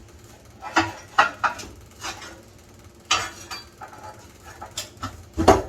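Irregular clanks and knocks of metal tools and parts on a cast-iron furnace being unbolted, with a heavier thump near the end.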